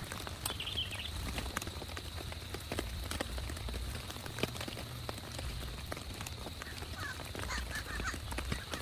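Rain falling, its drops making irregular sharp ticks over a steady low rumble of wind. A few short chirping calls come through about half a second in and again near the end.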